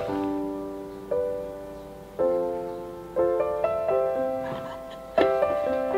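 Background music: a gentle piano melody, notes and chords struck about once a second and left to ring out and fade.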